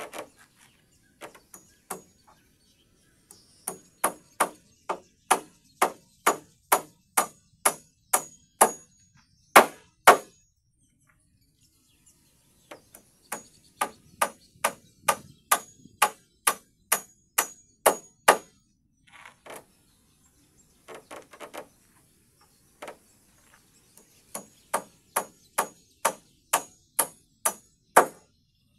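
Hand hammer driving nails into the timber floor frame of a wooden cabin: runs of sharp blows about two a second, each with a light metallic ring, separated by short pauses.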